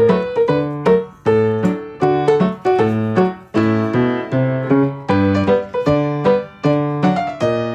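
Piano music: a lively tune of struck notes and chords that ring and die away, several a second.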